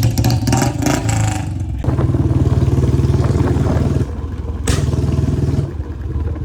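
Royal Enfield Bullet's single-cylinder engine running, clattery for the first couple of seconds and then running steadily, with one sharp crack a little after four and a half seconds.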